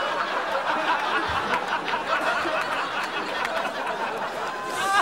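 Studio audience laughing, a sustained wash of many people's laughter.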